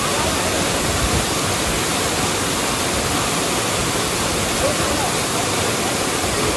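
Steady, unbroken rush of water pouring over a small waterfall.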